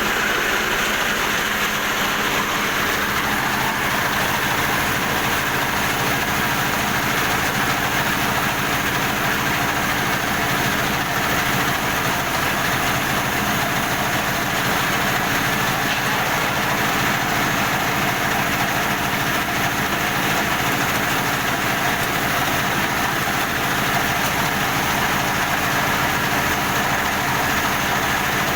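A combined rice huller and FFC 23 flour mill machine running steadily, a constant mechanical drone that does not change.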